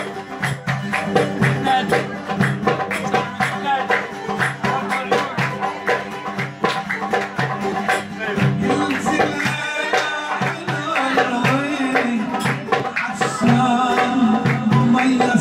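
A man singing while playing a fast, rhythmic accompaniment on a long-necked, bowl-backed lute. His voice stands out most in the second half.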